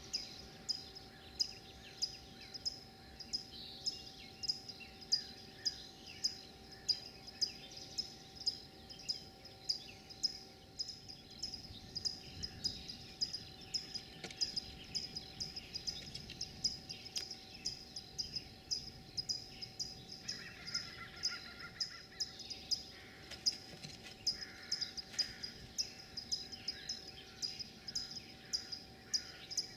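Short high-pitched chirps repeating steadily about twice a second, with a faint steady background hum.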